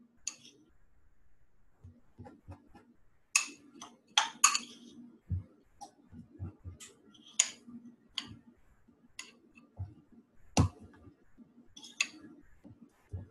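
Spoon scooping brown sugar into a dry measuring cup, with scattered sharp clicks and scrapes against the bowl and cup, a cluster of them a few seconds in and more near the end.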